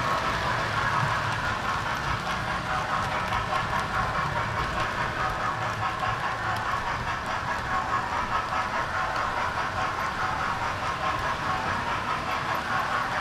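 Model train running on its track, heard from on board: a steady motor hum with the wheels rattling over the rails in a quick, continuous flutter.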